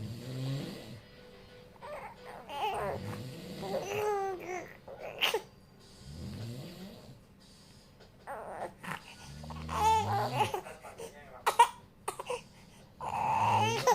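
A man snoring in low, rasping rumbles every few seconds, about four in all, while a baby whimpers and cries in wavering bursts between them, frightened by the snoring.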